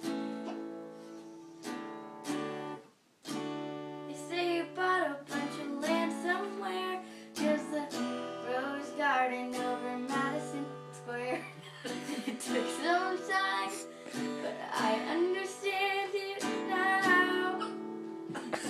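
A female voice singing over strummed guitar chords, the singing broken by hiccups. The music drops out briefly about three seconds in.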